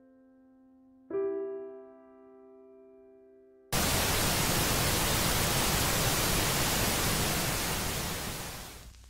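Soft piano chords ringing and fading, with a new chord struck about a second in. Just under four seconds in, a loud even hiss like TV static cuts in suddenly, holds, then fades out near the end.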